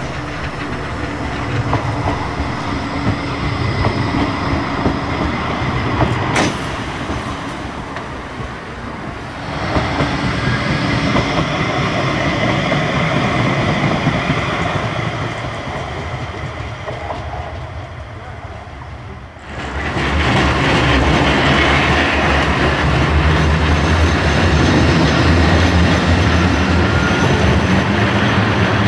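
Electric trams running past on the tramway, a modern Flexity 2 and a Centenary car, their wheels clattering on the rails. The sound changes abruptly twice, about a third and two-thirds of the way through, as one recording gives way to the next. The last section is the loudest.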